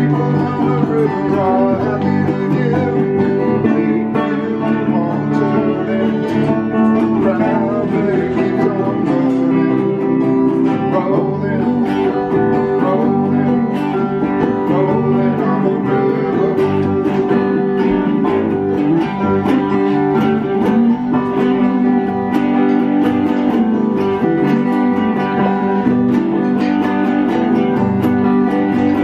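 Two electric guitars through small practice amps and a banjo playing a tune together.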